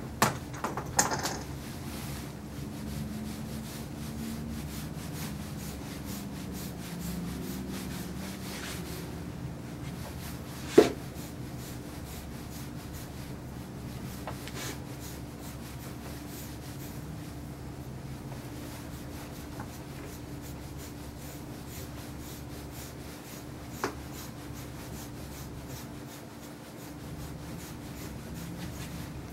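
A hand brush rubbing in repeated strokes through a dog's short clipped coat, over a steady low bass hum. A sharp knock stands out about eleven seconds in, with a few smaller knocks at the start and a lighter one near the end.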